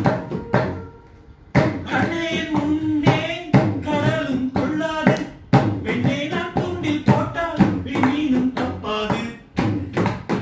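Hand drumming on an upturned plastic bucket and a small plastic table: sharp knocks in a steady rhythm, played along with a sung film song. The singing comes in about a second and a half in.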